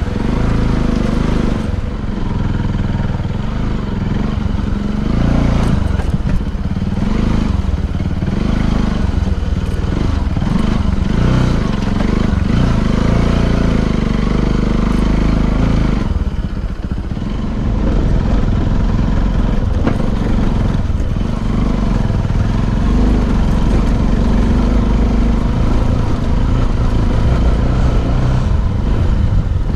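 Vehicle on the move with a loud low rumble of engine and wind on an action camera's microphone, dipping briefly about halfway through.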